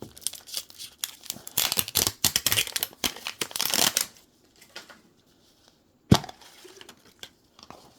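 Mini Brands plastic capsule and its wrappers being handled and opened: a busy run of crinkling, rustling and small plastic clicks for about four seconds, then one sharp snap about six seconds in.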